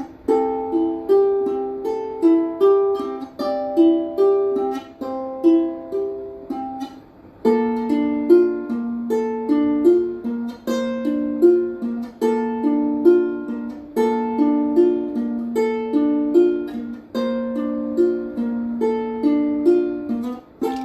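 Instrumental music on a plucked string instrument picking a repeating melodic figure, each note ringing briefly and fading. A lower note joins the pattern about seven seconds in.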